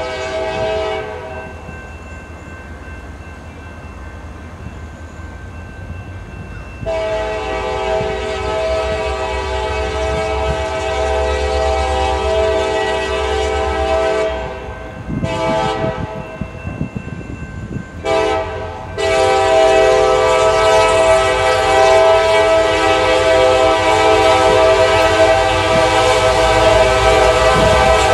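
A Nathan K5LA five-chime locomotive horn on a CSX GP40-2 sounds a series of blasts: a short one at the start, a long one of about seven seconds, a short one, a brief toot, then another long blast that is still going at the end. Underneath is the low rumble of two GP40-2 diesel locomotives running light.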